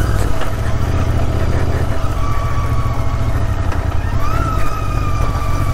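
Royal Enfield Interceptor 650's parallel-twin engine running at low revs as the motorcycle rides a rough, unpaved track. A thin high whistle comes in twice, rising and then holding steady from about four seconds in.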